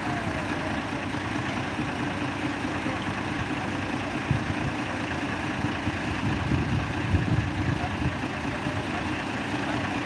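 Heavy truck engines running steadily, with a few brief knocks a little past the middle.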